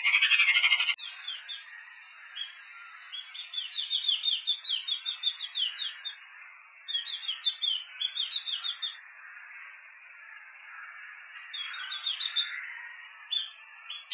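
Small birds chirping in quick runs of short, falling chirps, in bursts with pauses of a second or two between them, over a faint steady hiss. A music track cuts off abruptly about a second in.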